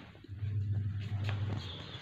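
Cat purring right against the microphone, a steady low rumble that swells about a third of a second in and eases off before the end.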